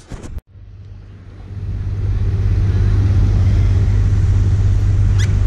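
A few brief clicks, then a steady low engine rumble that swells in over about the first two seconds and holds evenly.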